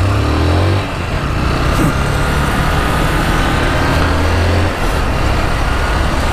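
A 2014 Honda CG 150 Fan's single-cylinder four-stroke engine running while the bike is ridden through city traffic, with steady wind and road noise. Its low engine note swells twice, at the start and again about four seconds in.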